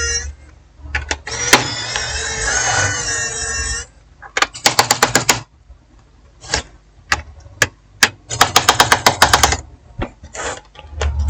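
Electric screwdriver backing screws out of a laptop's bottom case. A steady motor whir for the first few seconds, then two bursts of rapid clicking about a second long each, with scattered single clicks between them.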